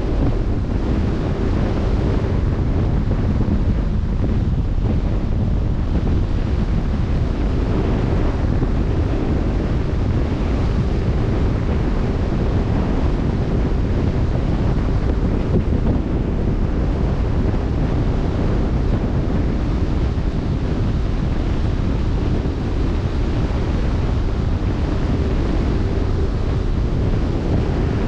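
Wind rumbling on the microphone over the steady wash of open-sea waves, with a faint steady hum underneath.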